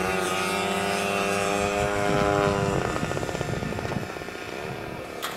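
Radio-controlled model airplane engine running at a steady high pitch, then dropping abruptly to a lower, rougher note about three seconds in.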